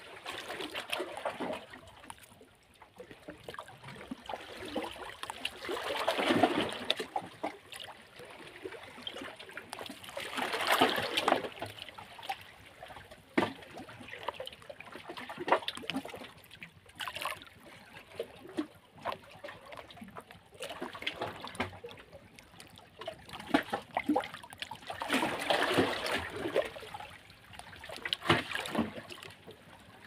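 Small waves lapping and splashing against shoreline rocks, washing in every few seconds in uneven swells, with trickling and small splashes in between.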